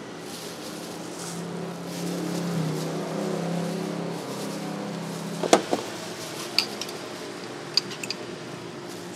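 Metal utensils and containers clinking on a steel food-stall counter: one loud sharp knock a bit past halfway, then a few lighter ringing clinks as a metal spoon works in a jar of chili sauce, over a steady background hum.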